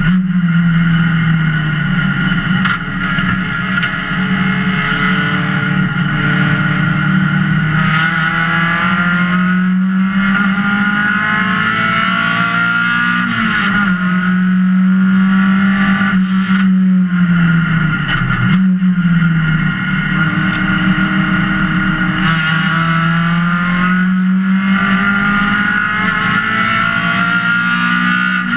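Race car engine heard from inside the stripped, roll-caged cockpit, running hard at high revs. Its note climbs slowly through long pulls, drops sharply twice in the middle, then climbs again.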